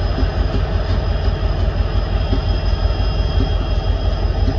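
Union Pacific diesel-electric locomotives passing close by, their engines giving a steady, deep rumble, with a faint steady high-pitched whine over it.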